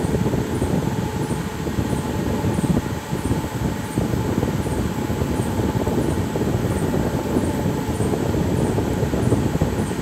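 Steady low rumbling noise with no clear pitch, and a faint high tick repeating about twice a second.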